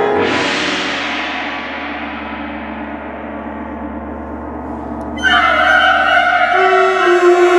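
Concert wind band: a single gong stroke whose shimmer blooms and slowly dies away over about five seconds above a held low note. About five seconds in, the band comes back in loudly with sustained chords.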